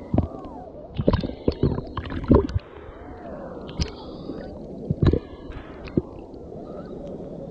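Sea water sloshing and gurgling over a camera held at the surface, with irregular splashes and bubbling as small waves wash over it and it dips briefly under.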